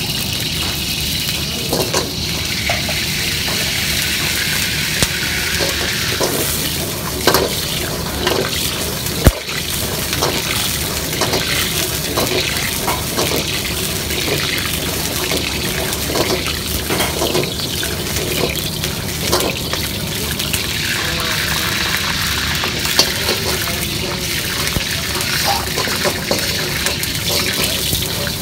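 Steady rushing noise of a commercial wok station: the gas wok burner running on high flame under a carbon-steel wok, with liquid hissing in the pan. Sharp metal clanks from the ladle and wok come now and then.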